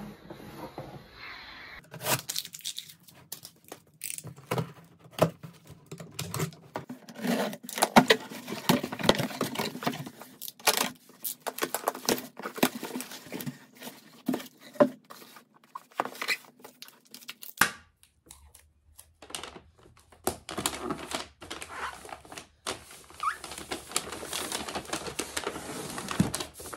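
Objects being handled at close range: an irregular run of clicks, knocks and rustling, cut off abruptly about two seconds in and again a little past halfway.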